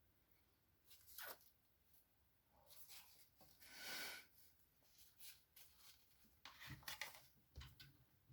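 Faint, scattered rustling and handling noises of packaging, in short irregular bursts with a longer rustle about four seconds in.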